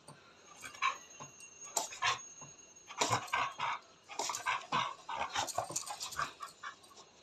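A pet dog making a run of short, complaining vocal sounds, whines and yips in irregular bursts that crowd together in the second half. These are the noises of an agitated dog grumbling and protesting, angry at its owner.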